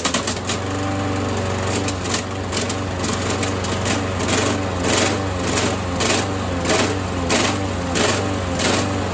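Walk-behind lawnmower's single-cylinder OHC engine running steadily, with a regular pulsing about twice a second. It is vibrating heavily because its blade is installed upside down.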